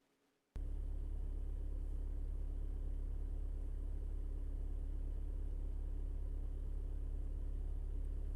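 Diesel car engine idling, heard as a steady low rumble inside the cabin, cutting in abruptly about half a second in after near silence.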